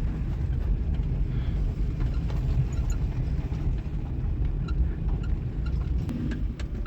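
Interior noise of a 1998 Suzuki Baleno driving over uneven road: steady low tyre and body rumble, with faint intermittent squeaks from the front corner in the second half. The squeak is the one the owner complains of, traced to a loose bonnet hinge.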